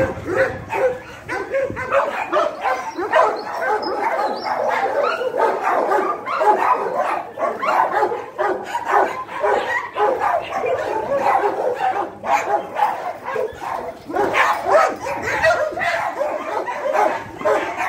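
Several dogs barking continuously, their barks overlapping with hardly a pause.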